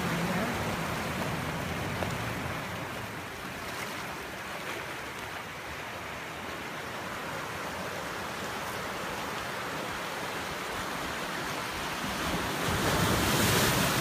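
Ocean surf breaking and washing over a rocky shore: a steady rushing wash that eases off in the middle and swells louder again near the end.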